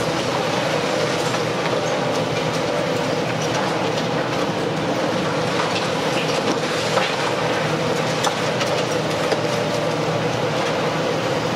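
Long-reach demolition excavator running steadily with a constant hum, its hydraulic crusher jaw breaking up concrete slabs. Chunks of concrete and debris clatter down in scattered sharp knocks, the loudest about seven and nine seconds in.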